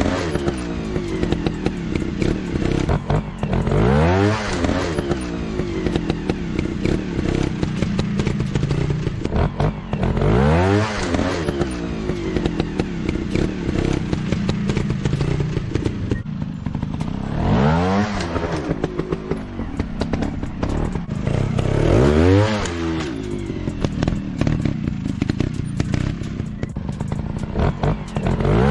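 Dirt bike engines running, with a throttle burst every four to seven seconds: the engine note sweeps sharply up and falls back each time, over a steady lower engine drone.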